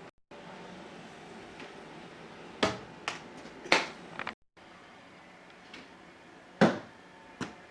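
A handful of separate sharp knocks and clicks over faint room noise, the loudest about two-thirds of the way through. The sound cuts out completely for a moment three times.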